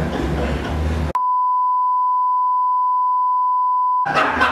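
A single steady beep tone, about three seconds long, cutting in suddenly about a second in and ending just before the close, with all other sound muted under it: a censor bleep laid over the audio. Voices and laughter are heard either side of it.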